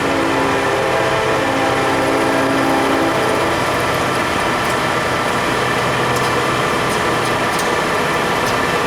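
Clausing 17-inch engine lathe running under power, a steady mechanical hum and gear whine whose tones shift in pitch every second or two.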